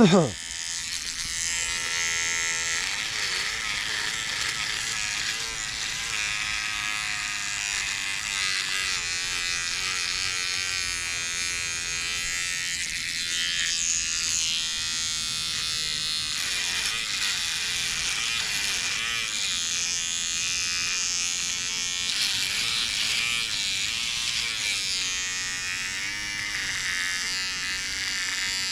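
Electric beard trimmer running steadily while cutting a beard, its buzz wavering slightly in pitch as it meets the hair.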